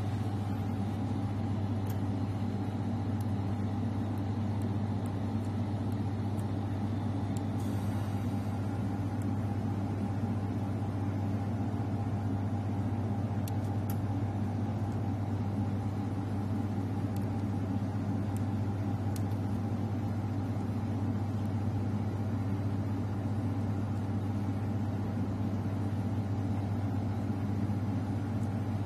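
2000 W fiber laser cleaning machine running steadily: a constant low drone with a thin higher whine over it, and a few faint ticks.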